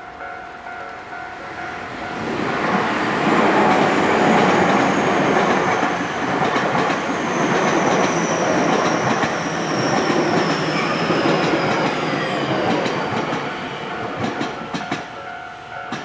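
Electric commuter train passing a Japanese railway level crossing, its wheels rumbling and clattering over the rail joints with a faint high whine that falls slowly in pitch. The crossing's warning bell rings steadily at the start, is drowned out while the train goes by, and is heard again as the train clears near the end.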